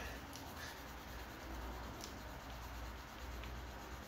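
Black plastic grip of a G1 Megatron toy being hand-polished with a white abrasive sheet, which is taking a thin layer off the plastic to smooth out scratches; a soft, steady rubbing.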